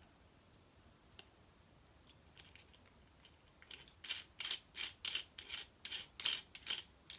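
Small parts of a ring-light tripod stand being handled and fitted together. It is quiet at first; then, from about four seconds in, comes a run of sharp clicks and rattles, about three a second.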